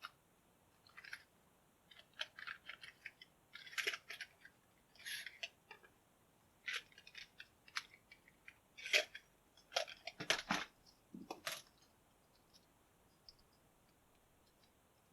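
Lock picks working in the keyway of a Master Lock 716D bike lock: irregular metallic clicks, ticks and short scrapes, with a couple of heavier knocks of the lock or tools being handled about ten seconds in.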